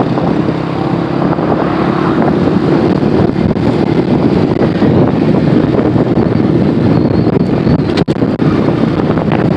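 A vehicle engine running steadily under heavy wind noise on the microphone, as from a moving vehicle. The sound cuts out for an instant about eight seconds in.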